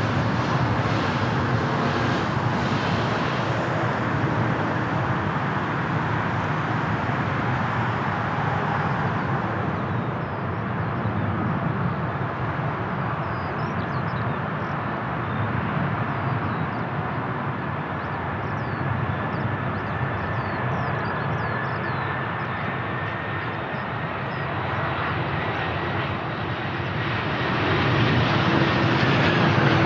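Jet airliner engines running steadily, with a faint high whine that drops slightly in pitch near the end.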